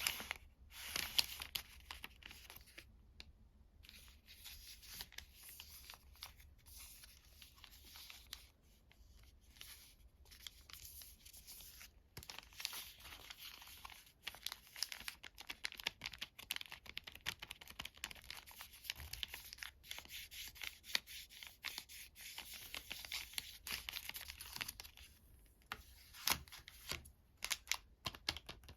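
Sweet and chocolate wrappers being torn open and crinkled by hand: a dense run of crackles and small snaps with brief pauses, the longest about three seconds in.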